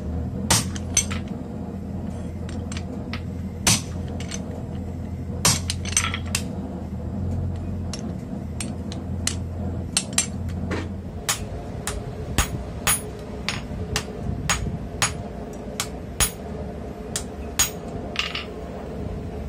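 Hand hammer striking red-hot steel in a guillotine fullering tool and on the anvil: a run of sharp, ringing metal blows, about two a second at first, with a few pauses as the piece is turned and moved.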